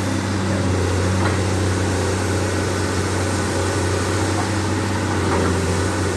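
Komatsu PC200-8M0 excavator's diesel engine running steadily at a constant speed.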